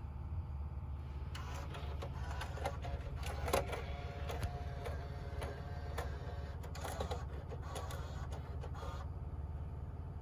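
Small mechanism in a repaired D592 unit whirring and clicking for about eight seconds, over a steady low hum, as its radio playback stops.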